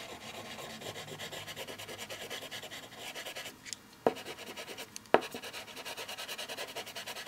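A milk chocolate bar rubbed back and forth across drawing paper in quick, even scratchy strokes as tone is shaded in. The strokes pause briefly after about three seconds, with two sharp taps about four and five seconds in.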